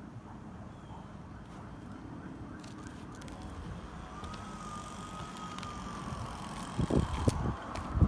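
Steady outdoor rumble with a faint, long wavering tone in the middle. About seven seconds in, loud low thumps of buffeting on the phone microphone.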